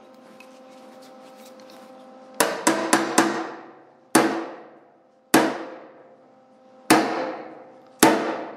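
Hand hammer tapping the sheet-steel fender of a 1967 John Deere 710, working a welded-in patch down toward flush. Eight blows: a quick run of four about two and a half seconds in, then four more about a second or so apart, each ringing briefly in the metal.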